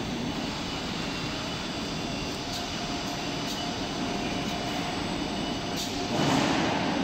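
Steady warehouse machinery noise, a mix of rumble and hiss with a faint steady whine, swelling louder for about a second near the end.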